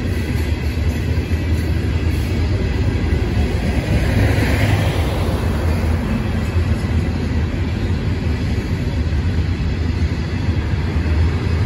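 Norfolk Southern coal train passing with a steady low rumble, while a tank truck drives by close about halfway through, its tyre and engine noise swelling and then fading.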